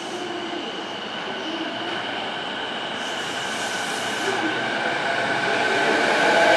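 JR East E233-series electric train pulling away from the platform, its motor whine and wheel noise growing steadily louder as it gathers speed. A brief hiss comes about three seconds in.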